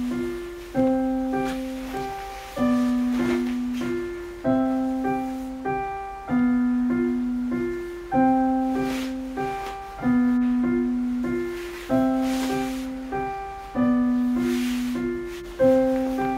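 Background piano music: a calm, repeating figure with a low note about every two seconds and higher notes over it.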